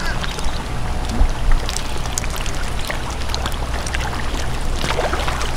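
Steady rush and trickle of pond water, with scattered small splashes and clicks.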